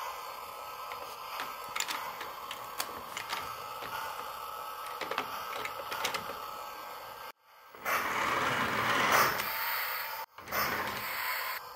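Light clicks and taps of a plastic toy coal wagon being handled and coupled on three-rail O-gauge track. About eight seconds in, after a brief dropout, a louder steady rattle takes over for a couple of seconds, and returns briefly near the end after a second dropout.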